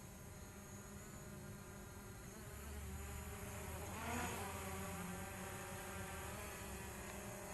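DJI Mavic Pro quadcopter's propellers buzzing, with a whine of several pitches that bends and grows loudest about four seconds in as the drone passes close.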